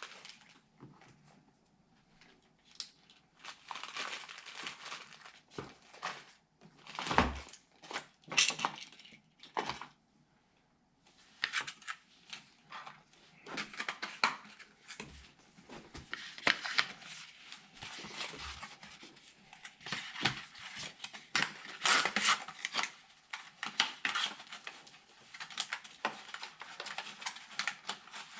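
Hands working on PC parts inside a computer case: rustling and crinkling with many scattered clicks and knocks, the loudest knock about seven seconds in.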